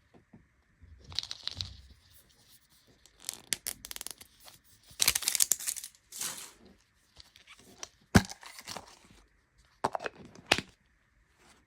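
Small plastic packaging being torn and crinkled by hand in irregular short bursts, with a few sharp clicks, the loudest about eight seconds in.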